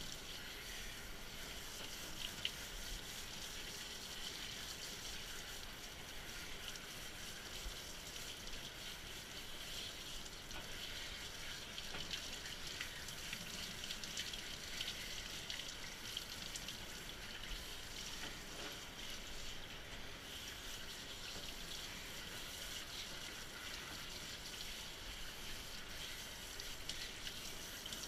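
Water spraying steadily from a handheld bathing sprayer onto a Bedlington terrier's coat in a grooming tub, wetting the dog down before shampooing.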